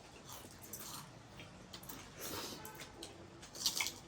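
Quiet eating sounds of a person chewing noodles, with scattered soft clicks and a short, louder burst of noise near the end.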